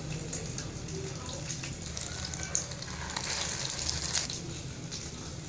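Egg-coated chicken shami kabab patties shallow-frying in hot cooking oil over a low flame: a steady sizzle with scattered crackles, a little louder about three seconds in.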